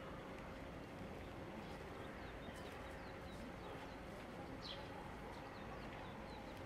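Faint outdoor ambience: a steady background hiss and low rumble with a faint steady hum. Short, high, falling chirps of small birds come every half second or so through the middle.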